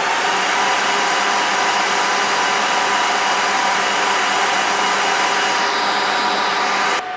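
HP ProLiant DL380 G5 server's cooling fans running at high speed just after power-on, a loud steady rush of air with a faint whine. The noise drops abruptly near the end.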